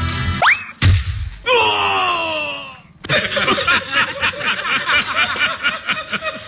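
Comedy sound effects laid over the clip: a quick rising whistle and a bang about a second in, then a falling sliding effect. From about three seconds in, a canned laugh track of snickering and chuckling takes over.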